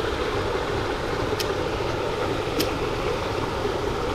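Steady rush of running water in a small stream, with two short sharp clicks about a second apart near the middle.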